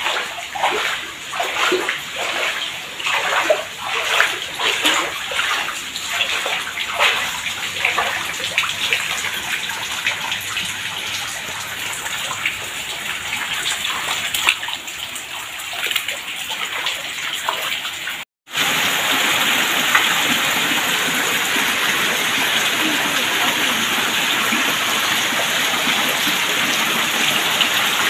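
Footsteps wading through ankle-deep floodwater, splashing in a steady walking rhythm. After a sudden cut, heavy rain with water pouring off a roof into the flood, a steady rushing hiss.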